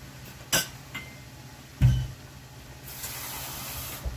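Kitchen counter clatter of glass and dishes: a sharp clink, a lighter ringing glass clink, then a heavier thud on the counter, followed by about a second of steady hiss and a last small knock.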